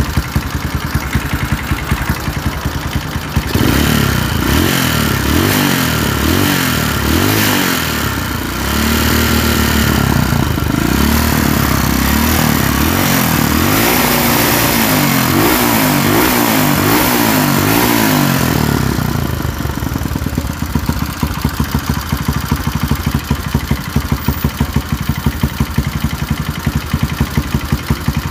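Yamaha Scorpio single-cylinder four-stroke motorcycle engine running rough, with the exhaust covered. It idles, is revved up and down repeatedly for about fifteen seconds starting a few seconds in, then settles back to a lumpy idle. A clattering 'keklek' comes from the cylinder head and gets louder with a little throttle. The mechanic likens it to a loose cam chain tensioner and suspects the cam timing is off.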